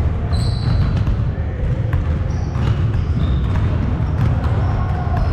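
A basketball bouncing a few times on a hardwood gym floor, with short high squeaks of sneakers on the floor, over a steady low rumble.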